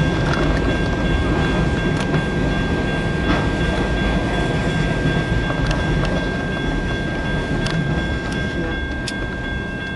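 Canadian National mixed freight train's cars rolling past, a steady heavy rumble with a few sharp clicks from the wheels, easing off a little over the last few seconds.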